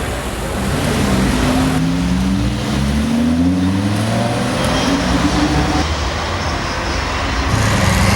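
A supercar engine accelerating hard. Its pitch climbs and drops back about three times as it shifts up through the gears, and a steadier engine drone follows near the end.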